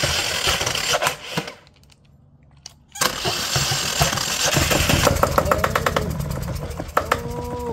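Kohler air-cooled turbo diesel engine running with water still in it, spraying water out of the exhaust with a hissing splutter. The sound drops out for about a second, then the engine is running again with an even, rapid knock of firing strokes.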